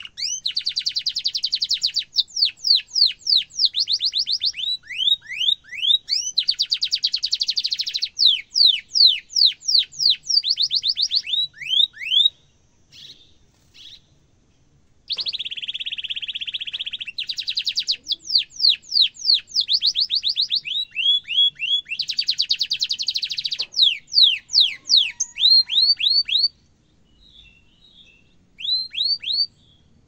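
Domestic canary singing: long, very fast rolls alternating with trills of quick falling whistles. It breaks off briefly about halfway through and again near the end.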